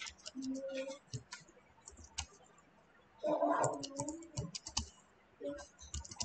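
Typing on a computer keyboard: a run of quick, irregular key clicks as a sentence is entered. A voice speaks briefly a few times in between, loudest about three and a half seconds in.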